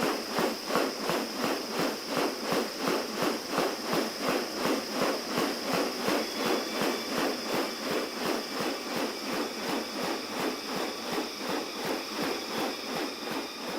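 Steady high drone of rainforest insects, with a fast, regular rustling beat of about three strokes a second running under it.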